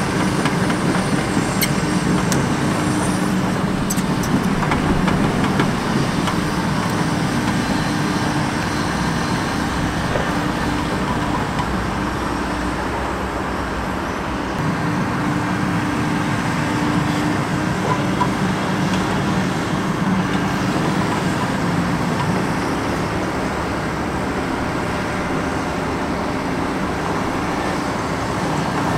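Takeuchi TB2150R excavator's diesel engine running steadily under working load with a constant hum, while the grading bucket scrapes and levels soil. There are a few light clicks in the first few seconds.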